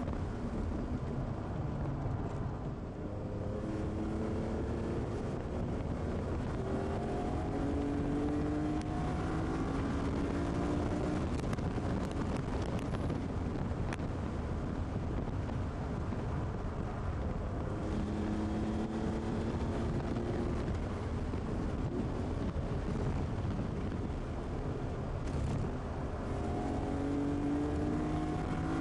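BMW E46 M3's straight-six engine at racing speed, heard from inside the cabin. The revs climb again and again through the gears, dropping back at each upshift or lift, over steady road and wind noise.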